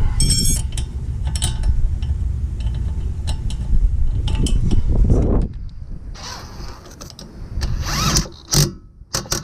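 Ratchet wrench clicking and metal tools working as bolts are tightened during brake reassembly, over a low rumble that stops about five seconds in. A few short scraping handling noises follow near the end.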